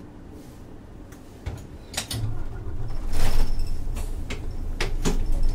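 Isuzu Erga city bus's doors working at a stop: sharp clicks and clunks from about a second and a half in, with a loud burst of air hiss a little past three seconds, over the low rumble of the 6HK1-TCC diesel.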